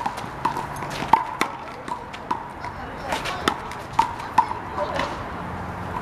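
Rubber handball being hit by hand and bouncing off a concrete wall and court during a doubles rally: a quick run of sharp pops, each with a short ringing ping, about nine over the first four and a half seconds, then fewer.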